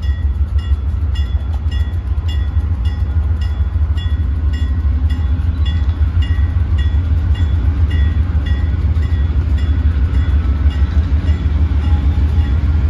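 Diesel freight locomotives, a pair of GE B40-8s, approaching with a steady low rumble that grows slightly louder. Over it a bell rings steadily, about three strokes a second, as a grade-crossing bell does while a train approaches.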